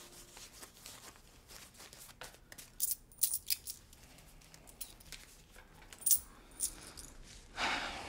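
Paper banknotes being counted by hand: a few crisp flicks and snaps of the bills in two short clusters, then a soft rustle near the end.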